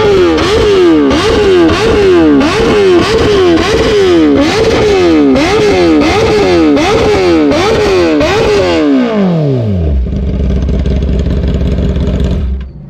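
Kawasaki ZX-10R inline-four sport bike revving through an SC Project CR-T short-can titanium exhaust with no dB killer, very loud. It is blipped quickly and repeatedly, about one rev every three-quarters of a second, then drops back to a steady idle, and the sound cuts off just before the end.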